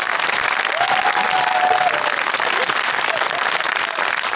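Studio audience applauding steadily. A voice calls out briefly over the clapping about a second in.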